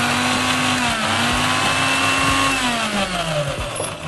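Electric kitchen mixer grinder running as it grinds, a steady motor whine whose pitch sags and recovers with the load, then falls and fades about three seconds in as it is switched off.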